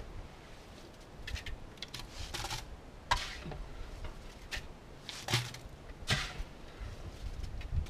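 A hand tool scraping and knocking inside the steel drum of a stopped Harbor Freight electric cement mixer: short, sharp scrapes and clunks at irregular intervals, roughly one a second.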